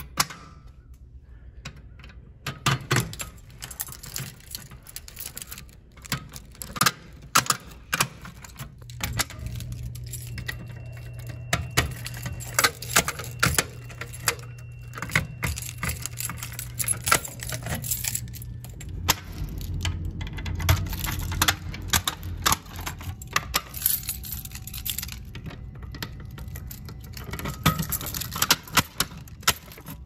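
A ring of metal keys jangling and clicking irregularly as it is handled, over a steady low hum.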